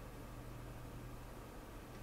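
Faint room tone: a steady hiss with a low hum.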